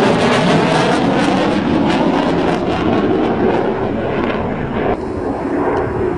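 Loud jet-engine noise of a fighter jet flying past, a dense rushing roar with no clear pitch. It thins and drops about five seconds in.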